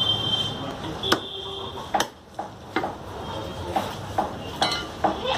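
A large knife chopping fish on a wooden stump chopping block: sharp knocks about once a second.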